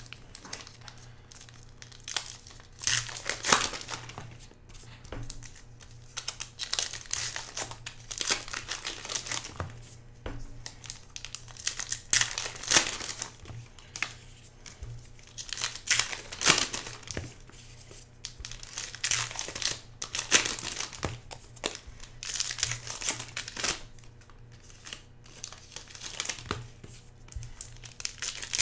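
Trading card pack wrappers from 2017 Topps Star Wars Journey to The Last Jedi hobby boxes being torn open and crinkled by hand, in irregular bursts one pack after another.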